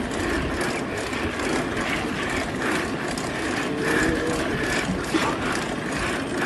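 Bicycle's rear freewheel ticking rapidly as the bike rolls along, under a steady rushing noise.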